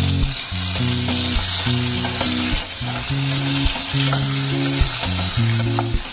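Soaked dried shiitake mushrooms with ginger, garlic and shallot sizzling in hot oil in a saucepan, stirred with a wooden spatula.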